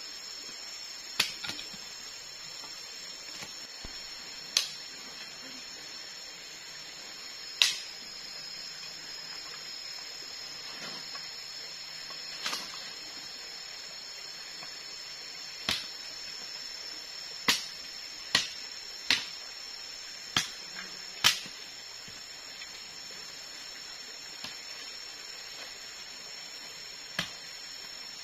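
Machete chopping a wooden stick: about a dozen sharp knocks at irregular intervals, several in quick succession a little past halfway. Behind them is the steady high drone of forest insects.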